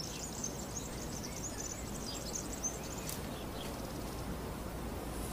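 Outdoor nature ambience of insects chirring, a high-pitched shimmer that fades after about three seconds, over a faint low rumble.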